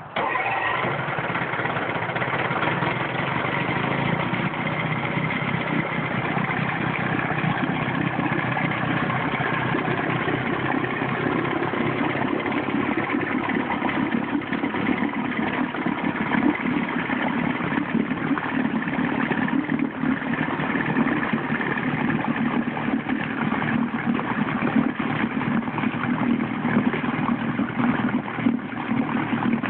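1957 Evinrude Lark 35 hp two-stroke twin outboard motor catching right at the start and then running steadily, its lower unit in a test barrel of churning water. This is its first start after restoration.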